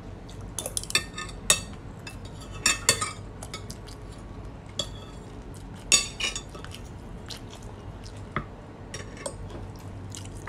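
Spoon and fork clinking and scraping against the dishes while eating rice: a scattering of irregular sharp clinks, the loudest about six seconds in.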